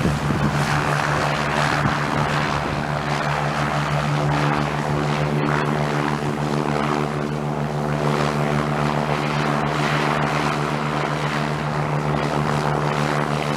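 Propeller aircraft engine running at a steady pitch: a constant drone with a rushing hiss over it.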